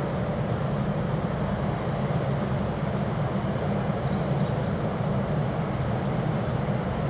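Strong wind rushing over the microphone as a steady low rumble.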